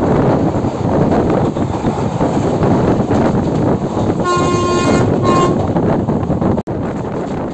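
Train horn sounding one long blast and then a short toot about four seconds in, over the loud, steady running noise of a train. The noise cuts out suddenly near the end and comes back quieter.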